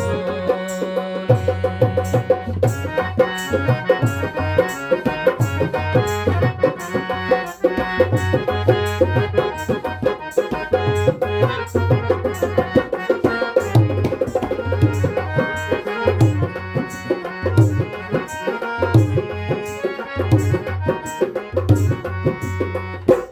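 Instrumental interlude of a Garhwali folk song: a harmonium plays the melody over a steady dholak rhythm, with deep bass strokes and sharp treble slaps on the drum.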